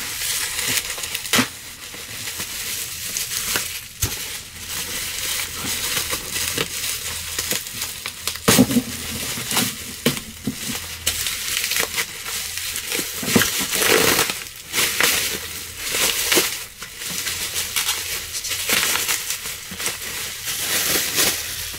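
Plastic packaging crinkling and crackling as it is handled, in a dense run of irregular snaps and rustles.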